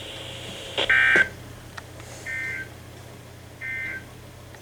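Emergency Alert System end-of-message code from a NOAA Weather Radio broadcast: three short bursts of two-tone digital data screech, about 1.3 seconds apart, the first the loudest, over the receiver's steady hiss and low hum.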